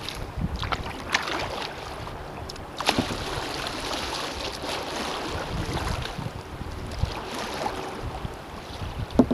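Kayak paddle strokes, the blades dipping and splashing at irregular intervals, with water sloshing against the hull and wind buffeting the microphone.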